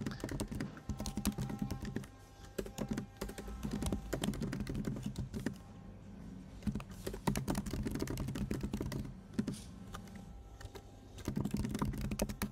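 Computer keyboard being typed on in quick runs of key clicks, broken by short pauses, as a sentence is entered.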